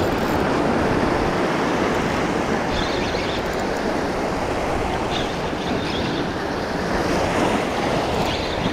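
Sea surf breaking and washing, with wind on the microphone: a loud, steady rush.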